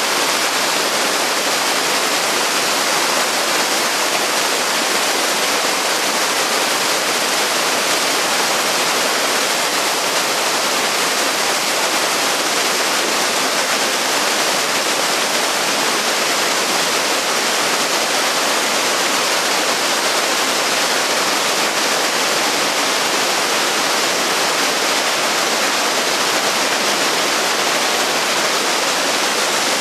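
Mountain river rushing over rapids and small cascades: a steady, unbroken roar of tumbling water.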